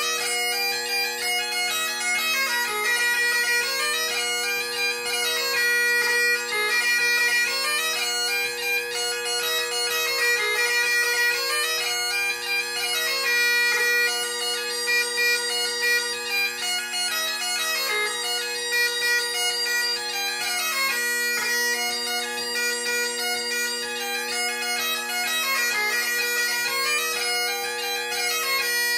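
Great Highland bagpipe playing a fast-moving dance-tune melody on the chanter over its steady, unbroken drones.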